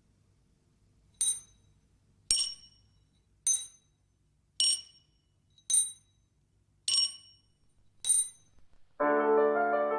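Seven high, bright bell-like dings, about one a second, each ringing briefly; piano music begins about nine seconds in.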